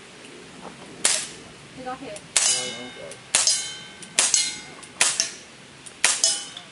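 A string of pistol shots, about seven over six seconds and unevenly spaced, fired at steel plate targets. Several shots are followed by the metallic ring of a struck plate.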